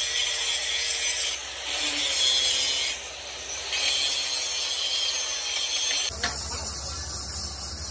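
Angle grinder grinding the edge of a worn steel excavator-bucket plate, a steady high grinding sound that eases off briefly twice as the disc comes off the metal. About six seconds in it cuts off and a low steady hum takes over.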